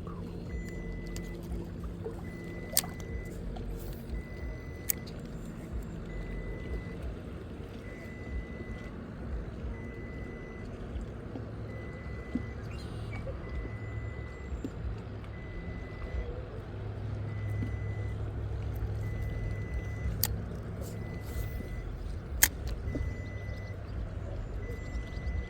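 Low rumble of a boat motor running, with a faint high electronic beep repeating about once a second throughout and a few sharp clicks.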